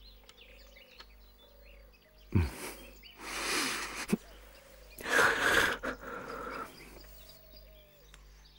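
Small birds chirping faintly in outdoor ambience, broken by several short noisy rushes: one about two and a half seconds in, a longer one around three and a half seconds, and another around five to six and a half seconds.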